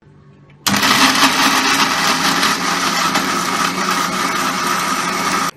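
Electric mixer grinder running at full speed, grinding cooked onion-tomato masala into a paste in its steel jar. It starts suddenly about a second in, runs with a steady whine, and stops abruptly near the end.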